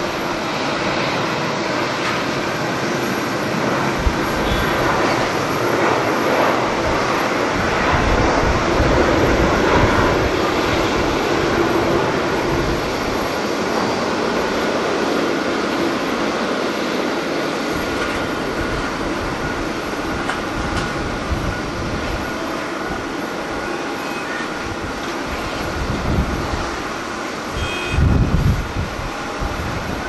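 Jet engines of a Boeing 737 at takeoff power: a steady roar with a thin high whine, loudest about a third of the way in and slowly easing as the aircraft climbs away. Near the end, gusts of wind buffet the microphone.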